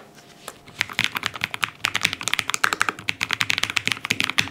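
Typing on a Lofree FLOW low-profile mechanical keyboard fitted with its tactile switches: a couple of single keystrokes, then fast, continuous typing from about a second in.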